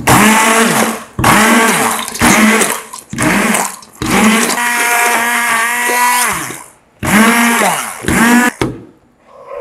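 Stick (immersion) blender puréeing roasted red peppers in a stainless steel pot, run in about six short bursts. The motor whine rises in pitch as each burst starts and falls away as it stops; the longest burst, about two and a half seconds, comes in the middle.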